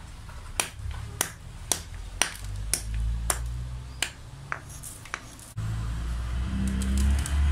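Wooden mallet pounding whole wheat grains on a stone slab, about eight sharp knocks roughly twice a second, cracking the grains. About two-thirds of the way in the knocking stops and a steady low rumble takes over.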